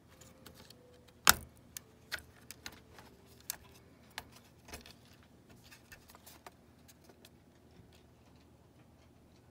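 Sharp plastic clicks and light rattling as a router's circuit board is unclipped and lifted out of its plastic case. The loudest click comes about a second in, followed by smaller ones over the next few seconds.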